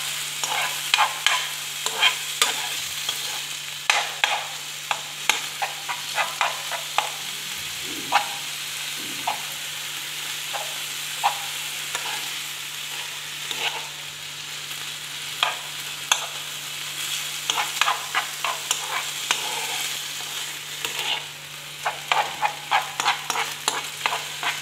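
Minced meat (kefta) sizzling as it browns in a nonstick frying pan, with a metal spoon scraping and tapping against the pan as it stirs. The clicks come in clusters, thinner in the middle stretch, over a steady sizzle and a faint low hum.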